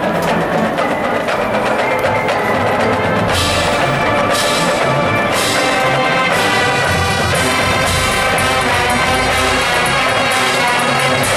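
College marching band playing: brass holding chords over drumline percussion, growing fuller about three seconds in.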